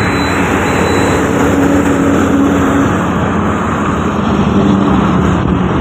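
Steady wind noise on the microphone and road traffic noise while riding on a moving two-wheeler along a busy highway, with the engines of trucks and motorbikes going by.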